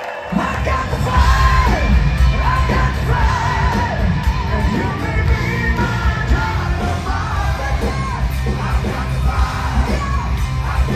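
Live band playing through a concert PA, heard from within the crowd: heavy bass and drums start suddenly just after the beginning, with a singer's wavering voice over them.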